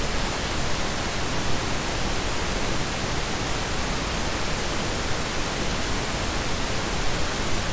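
Steady, even hiss of recording noise, with no other sound standing out.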